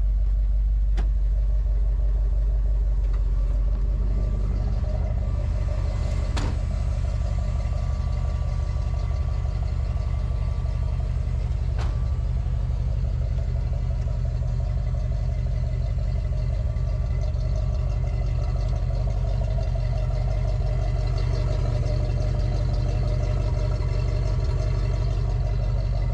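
Square-body Chevy K30 wrecker's engine idling steadily.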